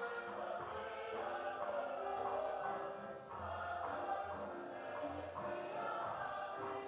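Choir music: several voices singing held notes that change every second or so, over low bass notes.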